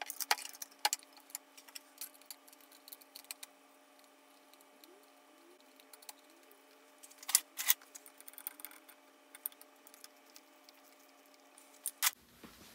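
Scattered light metallic clicks and clinks as a jumper-cable clamp and a lead are handled and a small wrench is worked at the terminal stud of a rebuilt 6-volt Autolite starter, with a few sharper clicks about seven seconds in. A faint steady hum runs underneath.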